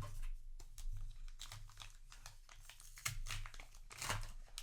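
Foil booster pack wrapper crinkling as it is handled, a run of short, irregular crackles.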